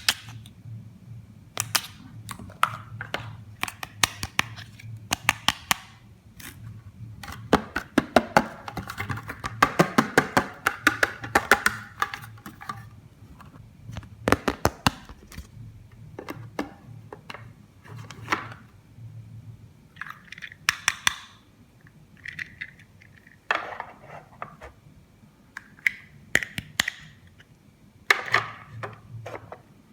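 Plastic toy pieces and packaging handled by hand: irregular sharp clicks and taps, with a dense run of rapid clicking and rustling near the middle.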